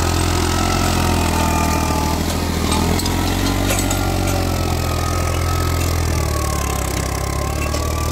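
Diesel farm tractor engine running steadily under load while pulling a disc plough through soil, a low even engine note with a thin whine above it.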